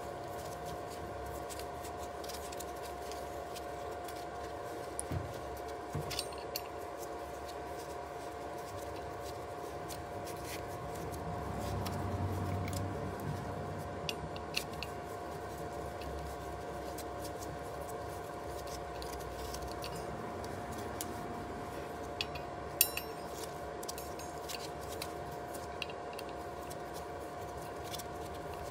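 Scattered small metallic clicks and taps of a hex key and Allen bolts being worked out of an electric scooter's brake rotor, over a steady background hum.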